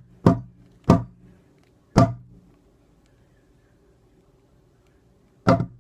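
A blade chopping down onto a hard surface: four sharp strikes, the first three about half a second to a second apart, then a pause of over three seconds before a last strike near the end.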